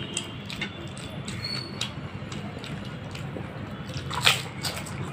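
Eating sounds: crisp fuchka (panipuri) shells crunching and wet chewing, as scattered short crackles and clicks, with a louder crunch about four seconds in.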